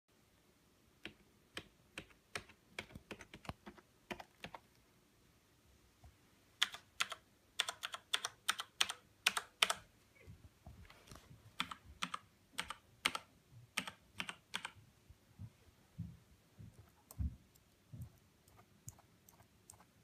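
Keys being pressed by hand on a series of computer keyboards, in quick runs of taps. The soft membrane keys of a Microsoft Natural Ergonomic Keyboard 4000 come first. From about six seconds in, louder key clicks follow from a mechanical gaming keyboard such as the Razer BlackWidow. Sparser, duller taps come near the end.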